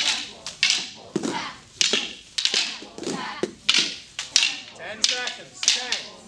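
Many pairs of Filipino martial-arts training sticks clacking against each other in a partner contact drill, irregular overlapping strikes several times a second, with children's voices calling out the moves.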